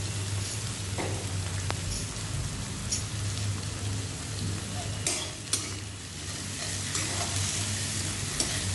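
Sliced onion sizzling as it fries in sesame oil in a heavy kadai, with a steady low hum underneath. A few short sharp clicks of a metal slotted spoon against the pan break in, the loudest a little past halfway.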